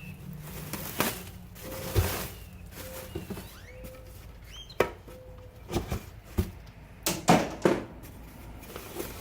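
A cardboard box and its packing being handled as a new alloy wheel is lifted out: irregular knocks, thumps and rustles, with a few short squeaks.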